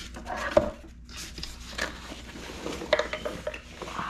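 Hands rummaging in a soft-sided ice-fishing electronics bag, lifting out hard gear and cables: irregular clicks, knocks and rustling, with sharper knocks about half a second in and near three seconds.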